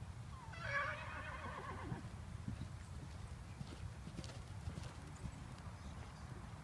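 Hoofbeats of a horse cantering on the sand arena footing. A short, high call with a falling pitch comes about half a second in.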